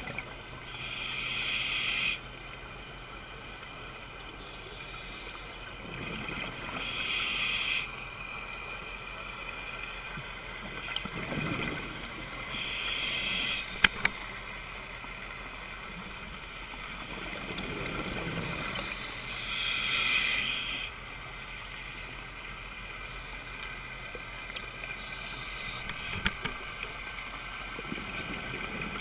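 A scuba diver breathing through a regulator, heard underwater through a GoPro housing. Bursts of exhaled bubbles come every few seconds, with softer inhalations between, over a steady hum. Two sharp clicks come about 14 seconds in.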